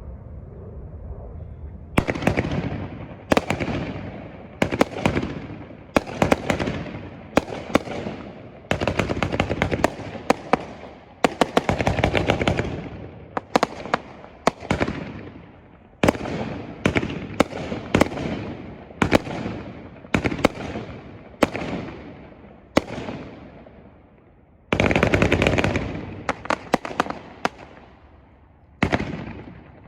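Winda Artistic Pyro 500-gram, 45-shot fireworks cake firing. A steady hiss runs for about two seconds, then shots go off in a string, roughly one a second. Each sharp launch is followed by the fading sound of its breaking shell, and near the end comes a louder, denser stretch of bursts.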